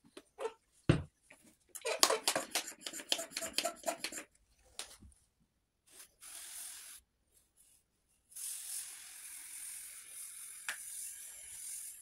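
Hand-pump pressure sprayer misting disinfectant onto a portable air conditioner's finned coil: a short hiss about six seconds in, then a steady spray hiss from about eight seconds on. Before that come a few clicks and about two seconds of clattering from handling.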